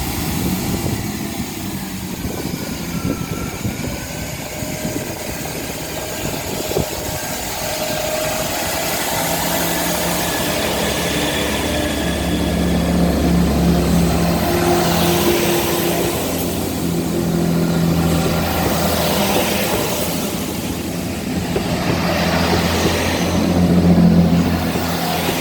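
Diesel engines of a Class 166 and Class 165 multiple unit running under power as the train pulls away. A steady low engine drone whose note shifts a few times, loudest near the end.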